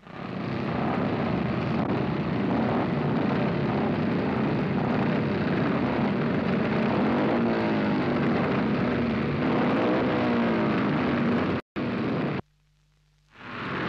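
Speedway motorcycle engines running and revving, with pitch rising and falling through the middle. The noise cuts out abruptly twice near the end, leaving a low hum for about a second before it resumes.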